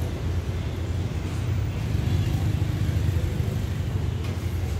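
Steady low diesel rumble from the standing train's engine idling.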